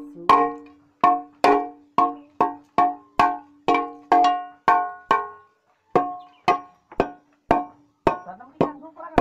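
Old rusty steel pipe struck over and over, about two blows a second, each hit ringing out with clear metallic tones; the strikes knock scale and rust off the used pipe. Near the end the blows come quicker and lighter, with less ring.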